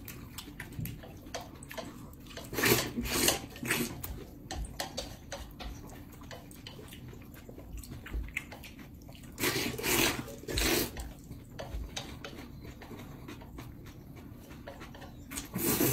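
Noodles being slurped from bowls in three bursts about a second long each, a few seconds apart. Between them come light clicks of chopsticks against the bowls.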